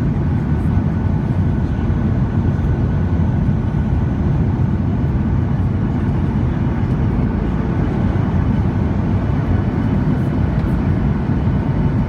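Airliner cabin noise during the descent: a steady, even rumble of engines and airflow, with a faint steady high whine over it.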